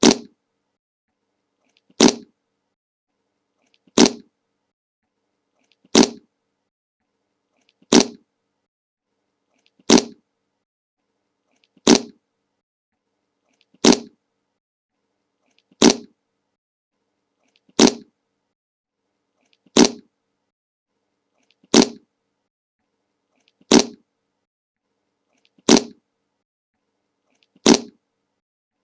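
The same short fart sound effect played on a loop, one sudden burst about every two seconds, fifteen times.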